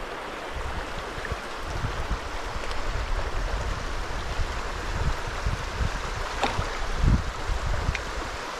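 A small mountain stream running over rocks, a steady rush of water, with low rumbling bumps underneath and a single sharp click about six and a half seconds in.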